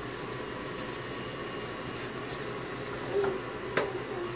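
Water running steadily at a salon shampoo sink as a scalp is rinsed, with a sharp click near the end.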